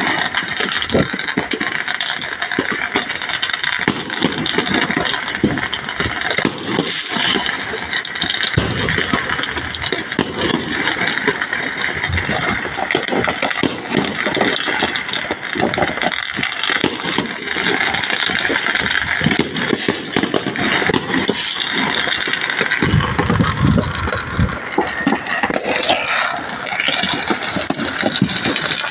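Fireworks crackling and popping in a dense, continuous barrage, with a brief falling whistle near the end.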